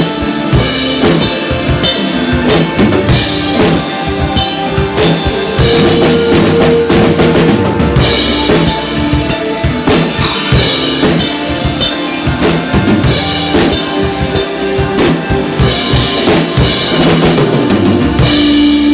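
Music driven by a busy drum kit, with bass drum, snare and rimshot hits over held pitched tones. The drums stop right at the end, leaving sustained chords.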